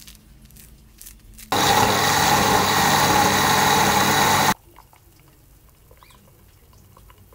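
Electric blender running steadily as it purees oranges, starting abruptly about a second and a half in and cutting off abruptly about three seconds later. Afterwards, faint sounds of orange juice being poured into a glass.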